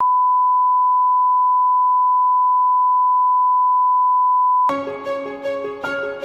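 Television bars-and-tone test signal: a loud, steady 1 kHz sine tone that cuts off about four and a half seconds in, when intro music with a stream of short repeated notes starts.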